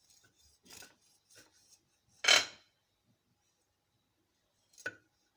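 Knife cutting through a sponge cake and scraping on the plate beneath, with a sharp knock of the blade against the dish about two seconds in and a smaller one near the end.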